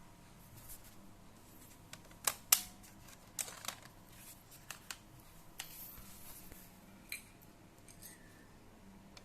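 Scattered sharp clicks and light knocks from hands and small tools handling a laptop's case and parts. The loudest two come close together about two and a half seconds in.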